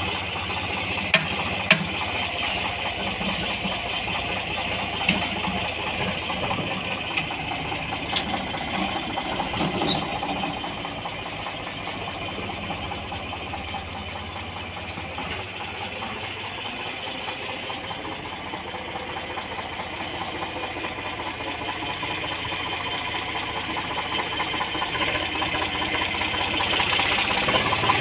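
Eicher tractor's diesel engine running steadily as it pulls a two-bottom mouldboard plough through dirt. A few sharp clicks come in the first two seconds, and the engine grows louder near the end.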